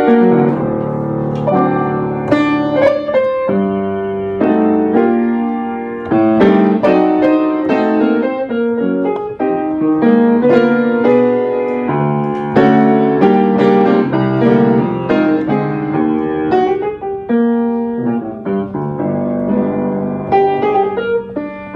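Yamaha piano being played: chords under a moving melody, with notes struck in quick succession.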